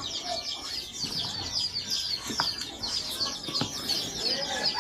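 Birds chirping continuously in rapid, high-pitched twitters, with a couple of sharp clicks around the middle.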